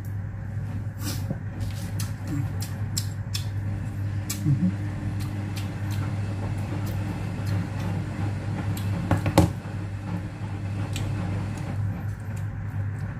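Close-up eating sounds: a person chewing food and smacking lips, making many short wet clicks, louder about nine seconds in, over a steady low hum.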